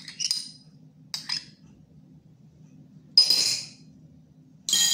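Metal spoon scraping and clicking against a small ceramic bowl as thick sauce is spooned out, then two louder ringing clinks of spoon and crockery about three and four and a half seconds in. A faint steady low hum runs underneath.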